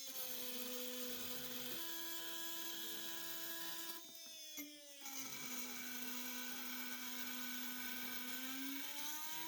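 Milwaukee M18 FUEL brushless oscillating multi-tool cutting with a new blade on its automatic speed setting: a steady buzzing whine with many overtones. Its pitch drops as the blade bites, just after the start and again from about four and a half seconds to nearly nine, and rises back between.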